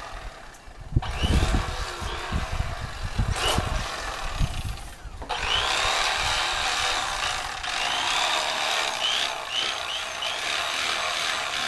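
Electric fillet knife running while cleaning sheepshead, its motor pitch rising and falling as it cuts, with scraping and a few thumps of the fish in the first half.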